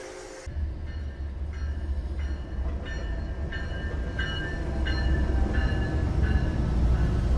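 A train horn cuts off about half a second in. Then a Norfolk Southern diesel locomotive, pulling an Amtrak passenger train, runs close by with a steady deep engine rumble, while a bell rings evenly about one and a half times a second.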